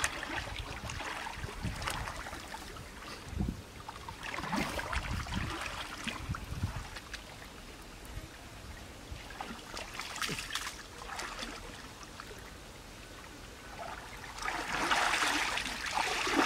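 Ditch water sloshing and splashing in irregular bursts as hands and feet work through it to catch fish, loudest near the end, with a few low thumps in between.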